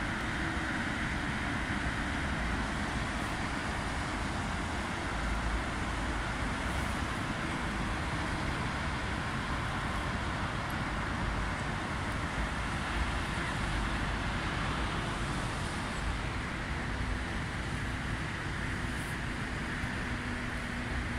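Steady road traffic noise from cars and trucks on a multi-lane road, an even hum of tyres and engines with no single vehicle standing out.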